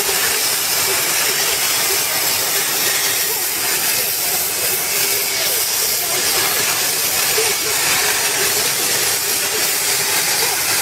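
CNC plasma cutting torch hissing steadily as its arc cuts through metal plate, with a faint whine that comes and goes.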